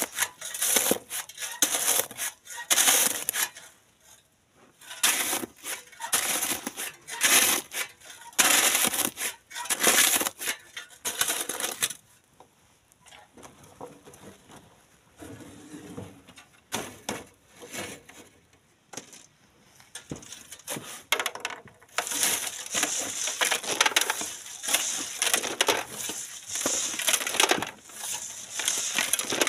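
Steel shovels scraping and scooping into sand and gravel, with gravel tipped into metal wheelbarrows, in repeated crunching strokes. The strokes thin out in the middle and come thick again for the last several seconds.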